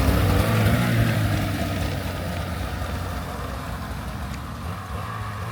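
Two-stroke snowmobile engine running steadily under throttle, slowly getting quieter as the sled moves away.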